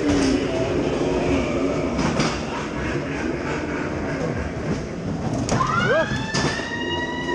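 Ghost-train car rolling along its track in the dark, wheels rumbling with scattered knocks and clatters. About five and a half seconds in, a tone rises and then holds steady over the rumble.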